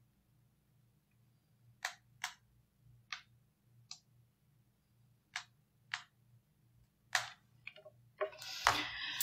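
Long acrylic nails tapping on a phone's touchscreen: irregular sharp clicks, one or two a second, as someone types. Near the end comes a louder, longer rush of noise.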